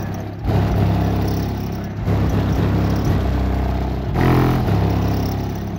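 Car audio subwoofers in the trunk of a sedan playing the deep bass line of a rap track, heard from outside the car: long low bass notes, each held a second or two before the next one starts.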